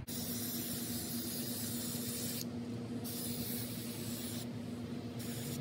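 Aerosol spray-paint can hissing in three bursts, the first about two seconds long and the others shorter, with brief pauses between, as dark paint is sprayed through a camo stencil.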